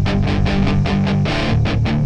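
Background rock music: an electric guitar playing fast, even strokes, about six a second, over steady low bass notes.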